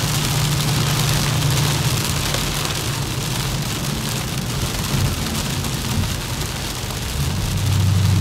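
Heavy rain hitting a car's windshield and roof, heard from inside the cabin while driving, over a steady low drone of engine and tyres on a wet road that shifts and grows louder near the end.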